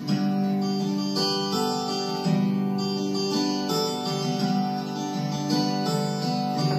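Instrumental intro of a song's recorded backing track, with guitar-like chords changing about once a second before the vocal comes in.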